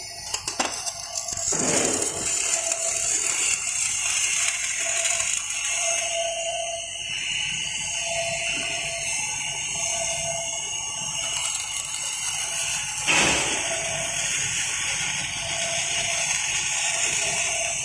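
Motorized welding column and boom running in a test: a steady hiss with a faint tone pulsing roughly once a second, and a brief knock just after the start and another about thirteen seconds in.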